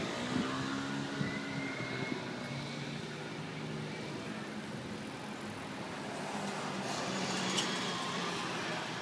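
Street traffic: motor vehicle engines running over a steady street hiss, swelling in the last couple of seconds as a city bus drives past close by, with one brief sharp click as it goes.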